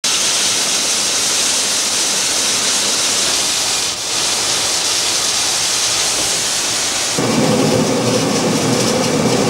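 Water rushing over a river weir in a steady hiss. About seven seconds in, this gives way to the running machinery of an 18th-century water-powered maize mill, lower in pitch and a little louder.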